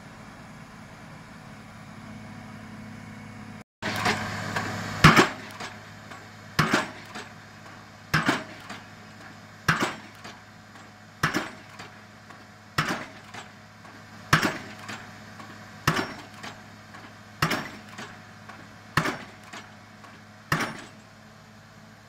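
Hydraulic pile hammer with a 7-tonne ram driving a 500 mm PHC spun concrete pile: about eleven heavy blows, one every one and a half seconds or so, each followed by a lighter knock, starting about four seconds in. The piling rig's engine runs steadily underneath.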